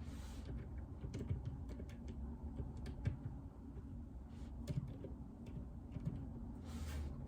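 Typing on a mechanical keyboard with Outemu Silent Peach linear switches: soft, dampened keystrokes at an uneven pace. Two brief soft swishes come just after the start and near the end.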